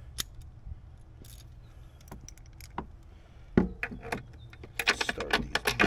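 Metal tools and parts being handled during hands-on work in a car's engine bay: scattered clicks and clinks, a sharp knock about three and a half seconds in, and a quick run of clinks near the end, over a steady low hum.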